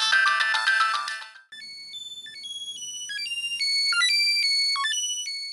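Sony Ericsson T610 ringtones: a busy, many-note tune cuts off about a second and a half in, and a sparser ringtone of clear single high notes begins, fading away near the end.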